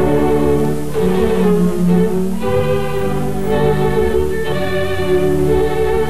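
Orchestral cartoon score led by bowed strings, playing a lively melody in short phrases with no dialogue.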